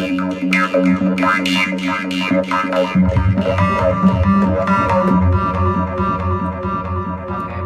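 Sylenth1 software synthesizer playing a distorted psytrance lead: a fast run of short, plucky notes from stacked pulse waves through a bandpass filter, foldback distortion and a dotted-eighth stereo delay. About three seconds in, lower notes join underneath.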